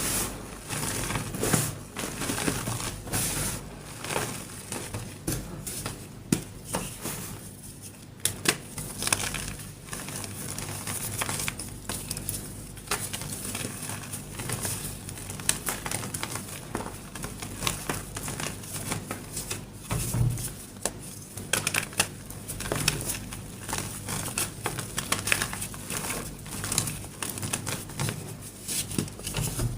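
Heart-shaped, painted gym chalk being crushed: a dense, irregular run of crunching and crackling, with many sharp little snaps.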